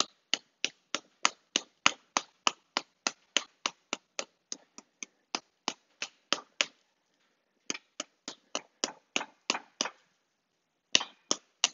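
A small wooden-handled hammer tapping quickly and repeatedly on the head of a sculpture made of metal wire, about three light strikes a second. The strikes stop briefly twice, about seven and ten seconds in. The taps are denting in the eye sockets of the wire face.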